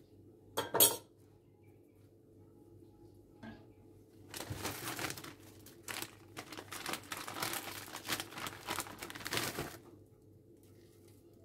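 A short, sharp clatter of a kitchen utensil set down about a second in. From about four seconds in, a plastic bag of shredded pizza cheese crinkles and rustles for several seconds as it is handled and opened.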